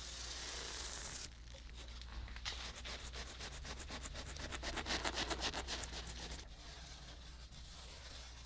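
Scissors cutting through a ceramic fibre blanket: a fast, even run of scratchy cuts lasting a few seconds, loudest about five seconds in. Before it, about a second of a pen rubbing along the fibrous blanket.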